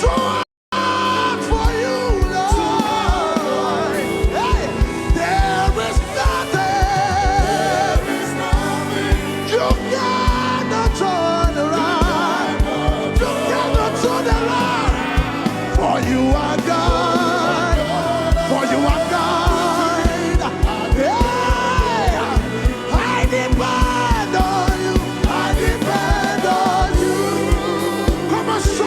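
Gospel song: singing with vibrato over a steady beat, with a brief dropout of all sound just under a second in.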